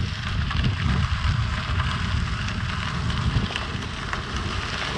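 Wind buffeting the microphone of a moving bicycle, with the tyres crunching and crackling over a gravel trail.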